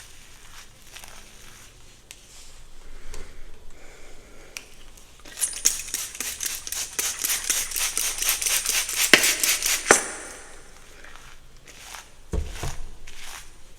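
Hair being worked close to the microphone: soft scratchy rustling, then from about five seconds in a run of fast scratchy strokes through the hair, about five a second, for about five seconds. A single dull thump comes near the end.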